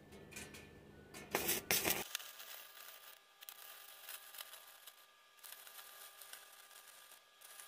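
Stick (arc) welding on thin galvanised sheet steel: a couple of brief loud scraping noises about a second and a half in, then the faint crackling sizzle of the arc, breaking off briefly a few times.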